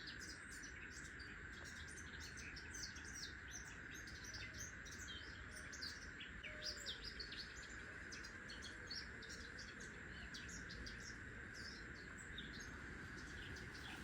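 Small birds chirping and calling, many short chirps overlapping throughout, over a faint steady high-pitched hum.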